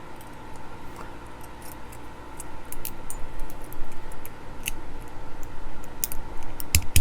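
Scattered small clicks and scrapes of an old multimeter's plastic and metal parts being worked apart by hand, with a sharper click near the end.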